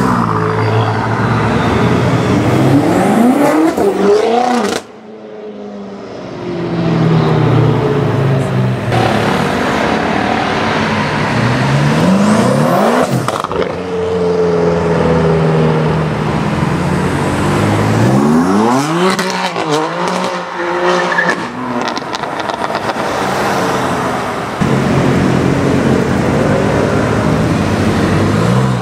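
BMW M6 twin-turbo V8 engines accelerating hard, the engine note climbing steeply three times, with steady low-rev running between the pulls.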